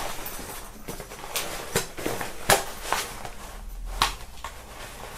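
Handling noise: rustling of a polyester backpack and scattered light clicks and knocks as a plastic shaker bottle is worked into the backpack's mesh side pocket.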